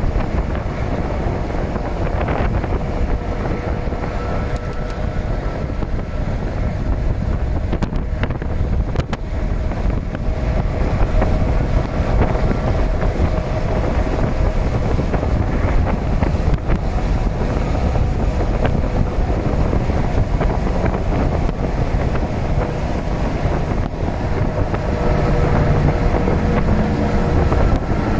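Freight train rolling past, a steady rumble of wheels on rails with faint held tones above it, and wind buffeting the microphone.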